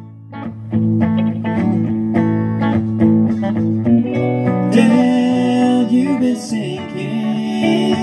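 Live band playing an instrumental passage between sung lines: electric guitar picking over an upright bass line.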